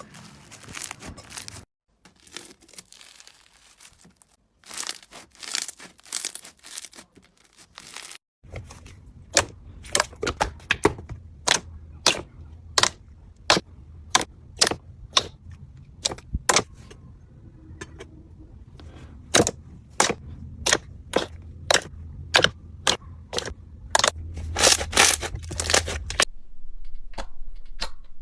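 Slime being squished and worked by hand: crackly, crinkling squishes for the first several seconds, then a long run of sharp popping clicks, about two or three a second, as air pockets in the slime are squeezed out.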